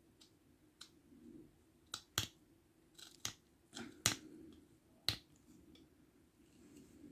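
Maskara folding pocket knife slicing small chips from a thin wooden branch: a series of short, sharp snicks, about nine of them at uneven intervals, the loudest a little after two, four and five seconds in.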